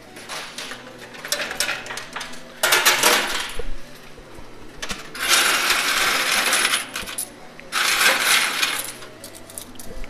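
Coins clinking inside a coin pusher machine. Scattered clinks are followed by three loud bursts of many coins clattering down together: about three seconds in, a longer one from about five to seven seconds, and another around eight seconds.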